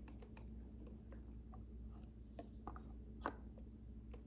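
Faint, scattered clicks and light taps of handling at the underside of a vintage Necchi BF Mira sewing machine while its shaft joints are oiled, with one sharper click about three seconds in.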